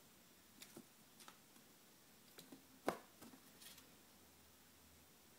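Near silence with a few faint, scattered clicks and scratches, the loudest about three seconds in: a pet squirrel's claws on a metal wire shelf.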